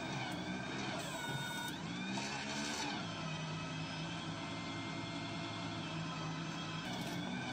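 Electric mini wheel loader running: a steady electric-motor hum with a whine above it, the whine sliding down and back up in pitch about a second in, and again near the end, as the raised bucket is worked.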